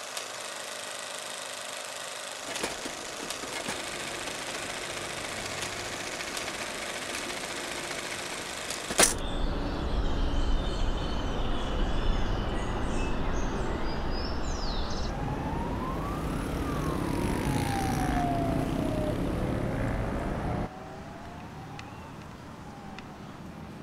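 A steady whirring hiss ends in a sharp click about nine seconds in. City traffic noise follows, with an emergency siren wailing up and down. Near the end it cuts off abruptly to a quieter street hum.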